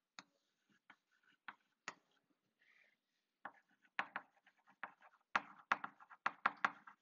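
Chalk on a blackboard: short taps and strokes as a small figure and a word are drawn, a few scattered at first, then quick runs of taps from about three and a half seconds in.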